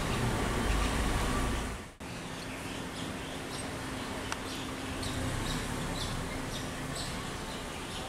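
A low vehicle engine rumble for about the first two seconds, cut off suddenly. Then a steady outdoor background with a faint hum and short high chirps about twice a second.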